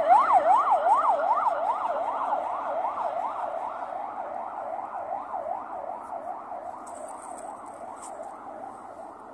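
Emergency vehicle siren in a fast yelp, its pitch sweeping up and down about twice a second over street noise, growing steadily fainter as it moves away.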